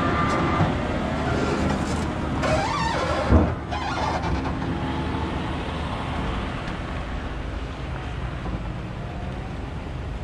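A vehicle or machine engine running steadily, with one brief louder sound that rises and falls in pitch about three seconds in.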